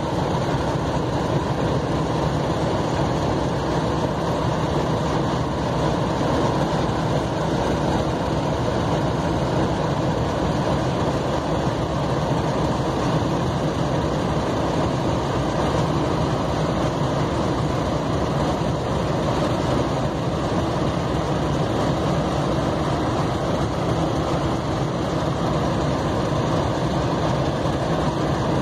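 Two Class 50 diesel locomotives standing with their English Electric 16CSVT V16 engines idling, a steady deep running sound that does not rise or change.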